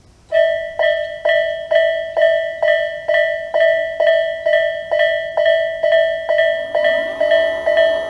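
Japanese railway level-crossing electronic warning bell (Tobu Railway's "sound A") starting up and ringing with a steady, loud ding about twice a second, signalling an approaching train. About seven seconds in, a second, lower set of tones joins it.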